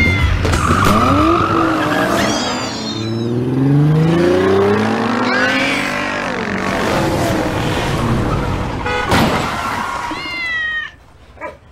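Car engine revving up over several seconds and then easing off, with tyre squeal, and a cat meowing briefly near the end.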